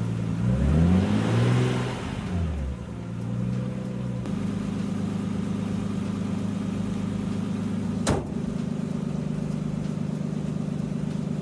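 Nissan Skyline R32 engine revved briefly, rising and falling over the first few seconds, then settling to a steady idle, with one sharp click about eight seconds in. It runs on fresh 10W60 oil meant to quiet its hydraulic lifter tick, and the owner thinks the tick is now gone.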